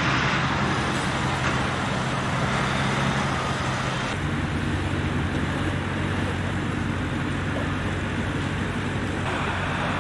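Steady hum of road traffic, its tone shifting abruptly about four seconds in and again near the end.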